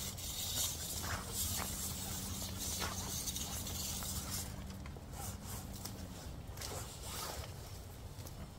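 Trellis twine pulled and scraped through dry, dead plant stalks and off a metal T-post: a series of rasping, rustling strokes over a steady low hum.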